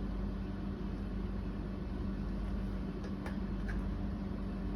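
Steady mechanical hum of a running electric appliance, with a few faint ticks about three seconds in.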